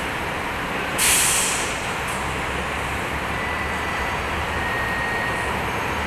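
Steady background noise of city traffic, with a sudden sharp hiss of air about a second in that fades within a second.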